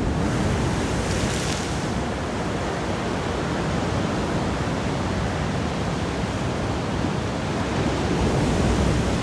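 Steady rush of water in a Maytag top-load washer on its test run after a new water pump and drive belt.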